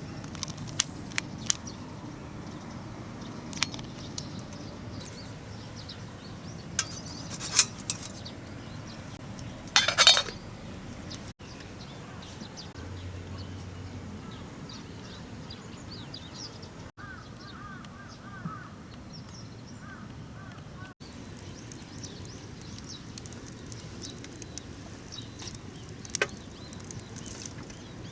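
Scattered light clinks and clatter of camp cookware and utensils, with a louder burst of clattering about ten seconds in, over a steady low background.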